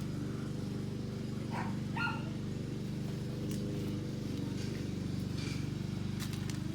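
A steady low motor hum with a fast, even pulse. Two short, higher calls come about one and a half and two seconds in, and a few sharp clicks near the end.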